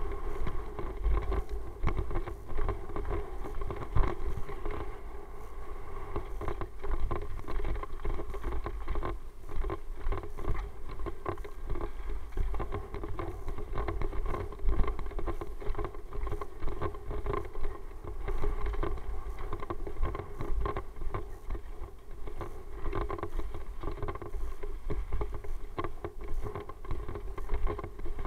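Bicycle riding over a dirt pump track heard through a mounted action camera: wind rumbling on the microphone, with frequent knocks and rattles as the bike goes over the bumps, and a steady hum underneath.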